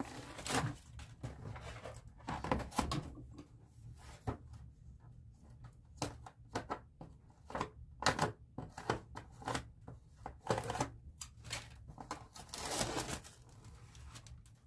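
A plastic food tray and its plastic wrap being handled and opened: irregular crinkles, crackles and clicks with short pauses between them, over a low steady hum.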